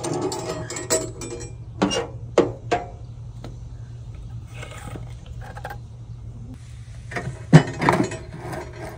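Dishes or cooking utensils clinking and knocking as they are handled: a few sharp knocks in the first three seconds and a louder cluster of knocks about seven to eight seconds in.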